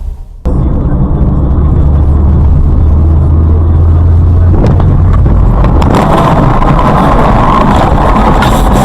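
A heavy vehicle's engine running, loud and low-pitched, starting abruptly about half a second in. A rougher, noisier sound builds over it in the second half.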